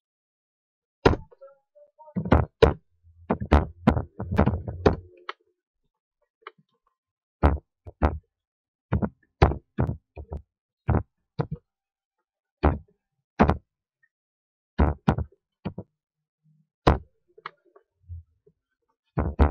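Computer keyboard keys pressed one at a time: sharp, separate clicks at an uneven pace, with a quicker run of keystrokes a few seconds in.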